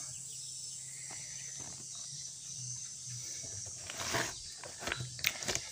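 Low steady hum, with a few soft knocks and rustles about four seconds in as a black plastic basin of mixed poultry feed is handled and moved.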